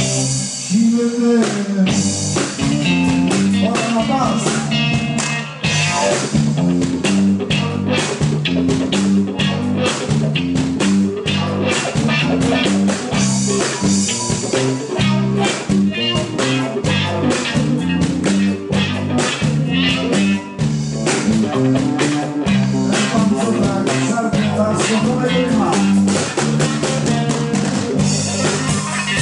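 Live blues band playing an instrumental passage: electric guitars, bass guitar and drum kit with a steady beat.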